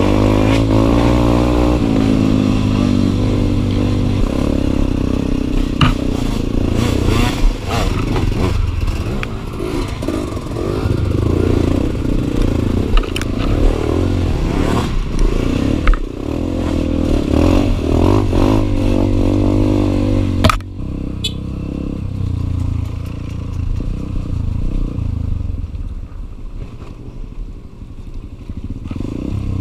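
Enduro dirt bike engine revving up and down while riding, with scattered knocks and clatter. About twenty seconds in there is a sharp knock, after which the engine runs lower and quieter.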